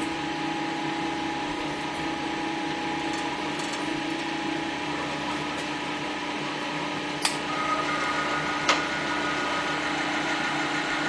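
Storm Vulcan Blockmaster 85B cylinder-head milling machine running with a steady mechanical hum, set up for a very light exploratory pass across a Jeep 258 head. A sharp click comes about seven seconds in, after which a higher whine joins the hum, and another click follows near nine seconds.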